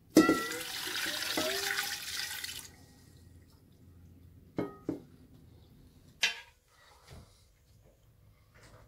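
Water poured from a stainless steel bowl into a stainless steel stockpot, splashing onto the meat for about two and a half seconds. Then two short metallic clinks and a sharp knock.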